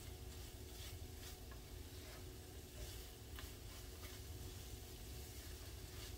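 Eggs with melting shredded cheese cooking in a non-stick skillet, giving a faint sizzle. A rubber spatula stirs them, with a few soft scrapes against the pan.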